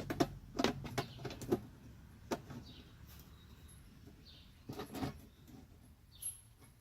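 Sharp clicks and knocks from parts and tools being handled during a hands-on install: a quick cluster at the start, one more a little after two seconds, and another cluster about five seconds in. Behind them a bird repeats a short falling chirp every second or two.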